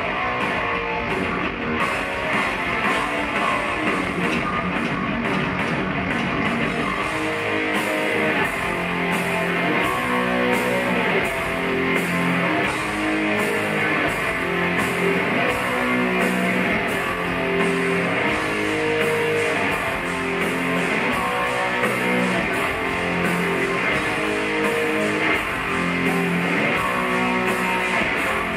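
Heavy metal band playing live: an instrumental passage led by electric guitar over bass and drums, with a steady drum beat coming in about eight seconds in.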